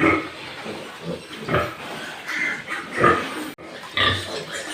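Pigs calling, four loud calls spaced about a second apart.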